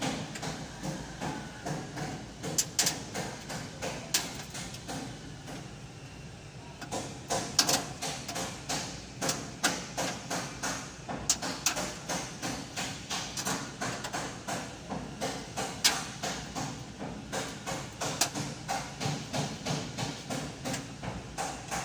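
Steady repeated knocking, about two to three strikes a second, with a short pause about five to seven seconds in and a few sharper, louder hits among them.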